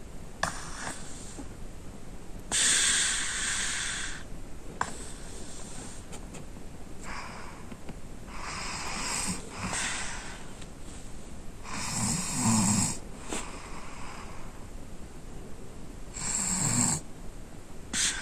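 A sleeping child snoring: noisy breaths come every couple of seconds, and the two loudest snores, near the middle and near the end, carry a low rattle.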